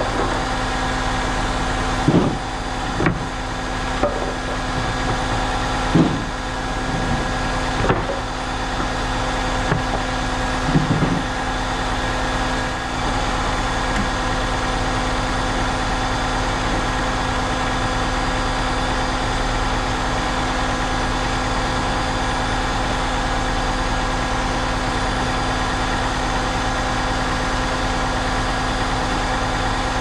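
Concrete pump truck's diesel engine running at a steady speed, with a handful of short knocks during the first eleven seconds or so.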